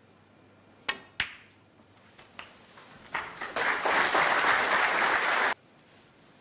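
Two sharp clicks of snooker balls about a second in, then audience applause that builds over about half a second, stays loud for about two seconds and cuts off abruptly.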